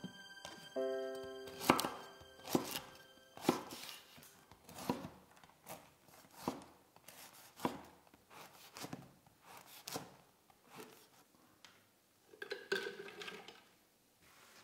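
Large kitchen knife cutting bread rolls on a wooden board: a series of sharp cuts, roughly one a second, with soft background music over the first few seconds. Near the end comes a brief clatter of the bread pieces going into a plastic chopper bowl.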